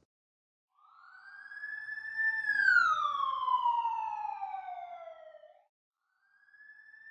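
Siren wail: a tone rises, holds briefly, then slides slowly down and cuts off; after a short pause a second rise begins near the end.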